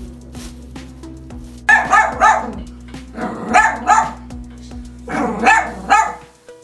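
Dog barking: six loud barks in three pairs, about a second and a half between the pairs.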